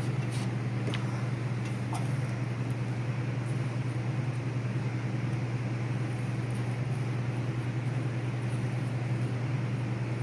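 Steady low hum with an even hiss behind it, and a few faint light clicks in the first two seconds.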